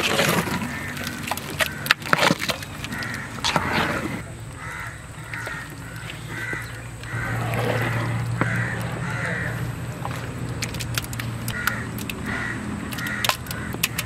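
Crows cawing, a long string of short caws about twice a second that pauses and then starts again near the end, with scattered sharp clicks and knocks. A steady low hum comes in about halfway.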